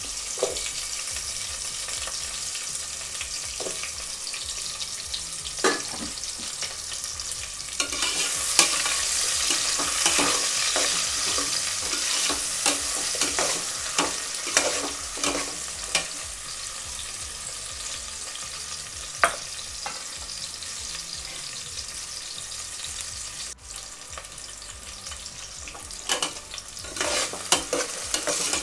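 Sliced onions and small onions frying in hot oil with whole spices in a metal pot: a steady sizzle, with a metal spatula scraping and clinking against the pot now and then as it stirs. The frying is louder and the clinks come more often for a stretch in the middle.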